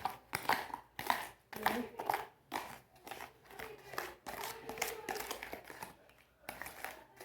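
A thick hair-mask mixture of cream, sugar and serum being stirred by hand in irregular strokes, about two a second.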